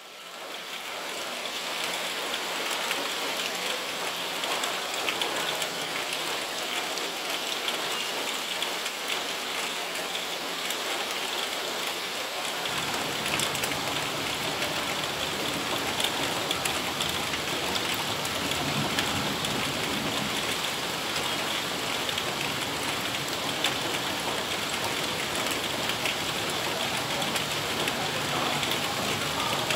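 Heavy rain pouring steadily, an even hiss of falling water, with a low rumble joining in a little under halfway through.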